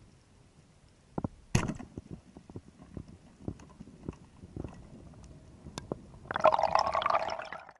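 Speargun fired underwater: a small click, then a sharp loud snap as the spear is released, followed by scattered clicks. Near the end comes a loud rush of bubbles lasting about a second and a half.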